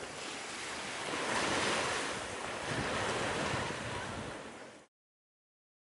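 Sea surf washing onto a sandy shore, a steady hiss that swells and eases as the waves come in, fading out to silence about five seconds in.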